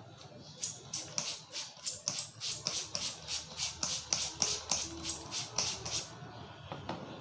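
Rhythmic hand strikes of a head massage, about four a second, starting about half a second in and stopping about six seconds in.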